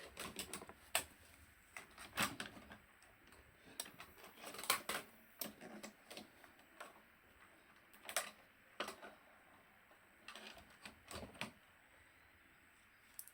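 Irregular light clicks and taps of small objects and tools being handled on a repair bench, about a dozen spread unevenly.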